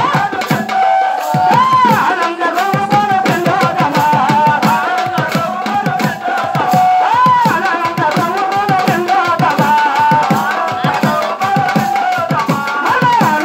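Bhajana devotional singing, a voice carrying a melody that bends in pitch, over a hand drum beating a fast, steady rhythm.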